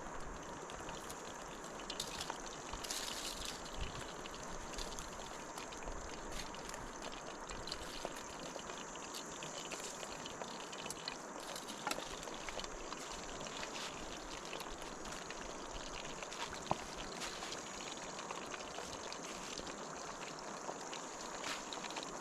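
Steady trickling water, with a few faint clicks here and there.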